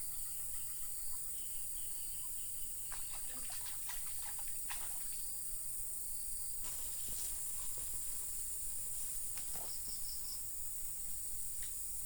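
Steady high-pitched insect chorus, like crickets or cicadas, with scattered clicks and knocks through the middle.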